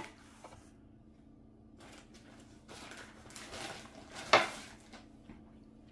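Faint rustling and handling noise as parts are picked up at the workbench, with one sharp knock a little over four seconds in, over a faint steady hum.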